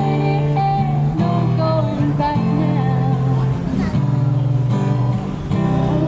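A woman singing into a microphone while strumming an acoustic guitar, a live street performance.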